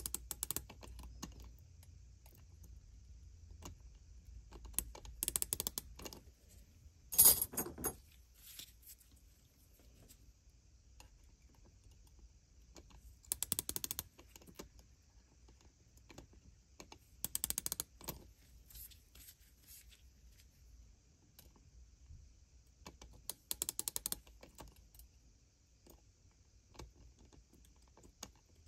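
A digital micrometer's ratchet thimble clicking as it is turned closed on a steel AR-15/M16 gas tube to measure its diameter. It comes in short runs of rapid clicks every few seconds, the loudest about seven seconds in.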